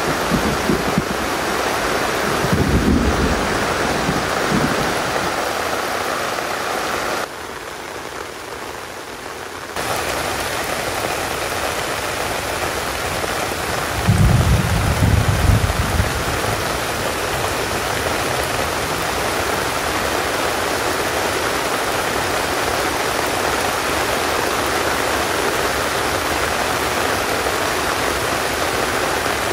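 Steady heavy rain falling, a continuous even hiss. Low rumbles of thunder come twice, about three seconds in and again around fourteen to sixteen seconds in, and the rain drops to a quieter level for a couple of seconds around the eight-second mark.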